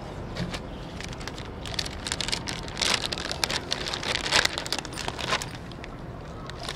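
Thin polythene sheet crinkling and rustling as it is handled and peeled back by hand, with a dense run of quick crackles through the middle seconds.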